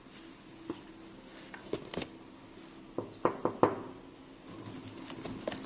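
A few light knocks and clicks, with three sharper knocks close together about three seconds in, over a faint steady hum.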